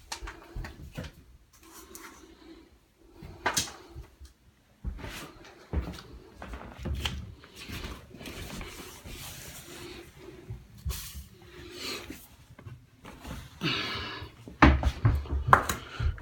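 A smoke detector being handled: scattered clicks, knocks and rubbing, with a cluster of louder knocks near the end.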